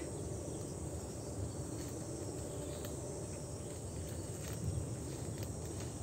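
Steady forest ambience with a low rumble, with a few faint crunches of footsteps on dry fallen leaves.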